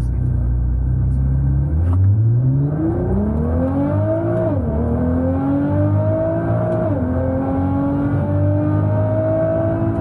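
Nissan GT-R's twin-turbo V6 pulling away from a low, steady idle-like hum and accelerating hard through the gears, heard from inside the cabin. The engine pitch climbs, drops at an upshift about four and a half seconds in and again about seven seconds in, then climbs once more until a third shift at the very end. This is a wide-open-throttle datalog pull, run to find the cause of engine knock.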